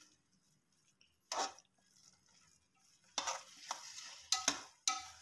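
Spoon stirring and scraping through thick carrot halwa in a metal pot, mixing in milk powder: one scrape about a second and a half in, then a quick run of scrapes near the end.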